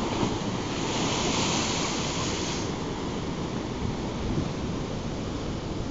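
Atlantic surf breaking against rocks: a continuous rushing of churning, foaming sea water, with a brighter hiss of washing foam swelling about a second in and easing off a couple of seconds later.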